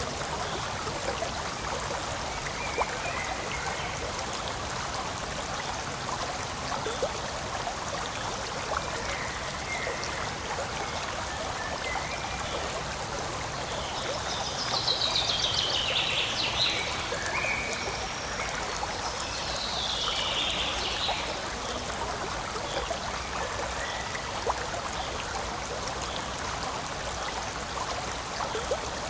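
Forest stream flowing, a steady rush of running water. A few short high-pitched calls stand out above it, the loudest about halfway through and again a few seconds later.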